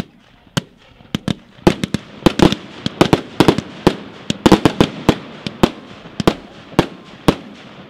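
Royal Elements compound firework cake, four 25-shot cakes in one, firing a rapid run of sharp bangs, about three or four a second, with a noisy wash between the shots.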